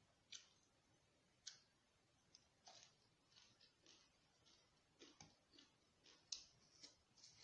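Faint eating sounds: soft, irregular clicks and crunches of someone chewing fresh vegetables and noodles with the mouth closed, with the light rustle of food being picked up by hand.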